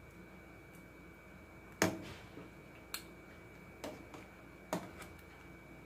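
Metal ladle clinking and tapping against a stainless steel cooking pot while foam is skimmed off boiling chicken broth. There are several short, sharp clicks, the loudest about two seconds in, over a faint steady background tone.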